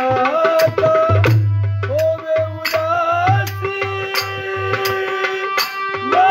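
Instrumental passage of a bhajan in raag Sorath: a hand drum keeps a steady beat of low strokes under a held melody that moves note by note.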